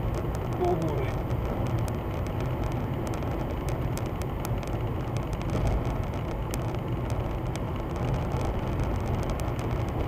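Steady low rumble of a car driving, heard inside the cabin through a dash camera's microphone, with many irregular faint clicks and crackles running through it, a fault in the dash camera's audio.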